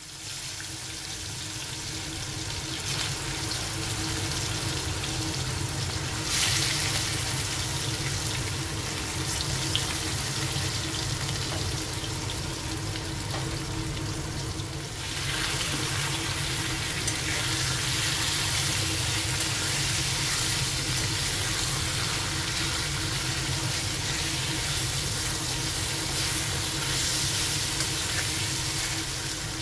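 Chicken pieces sizzling as they fry in hot mustard oil in a kadhai, a steady hiss that grows louder in steps about six seconds in and again about fifteen seconds in as more pieces go into the oil.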